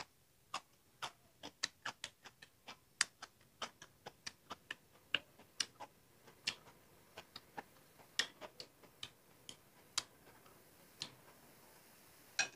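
Close-miked chewing of a crisp raw crab-claw herb salad: quick, irregular crunches and mouth clicks, roughly two to three a second.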